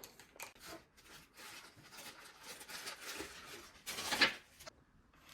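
A small packaging bag being handled and opened by hand: soft rustling and crinkling with scattered small clicks, and one louder rustle about four seconds in.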